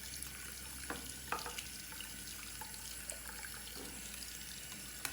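Tap water running steadily into a sink, flushing dried ink out of a clogged print head. A couple of faint knocks come about a second in.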